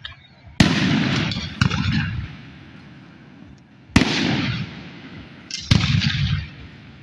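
Aerial firework shells bursting: four sharp booms, two close together in the first two seconds and two more around four and six seconds in. Each is followed by a rolling rumble that dies away over a second or so.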